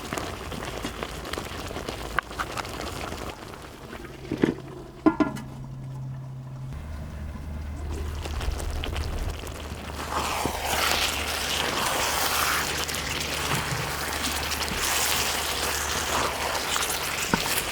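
Food sizzling on a hot cauldron-lid griddle, with a few knocks about four to five seconds in. The sizzling grows louder about ten seconds in.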